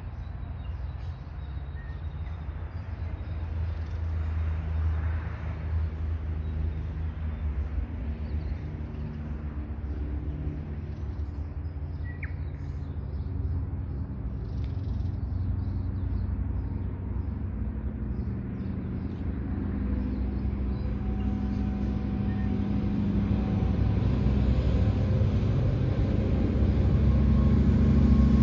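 Diesel engines of a pair of KiwiRail freight locomotives droning steadily and growing louder as the train approaches, with the deep rumble of the loaded wagons rolling past near the end.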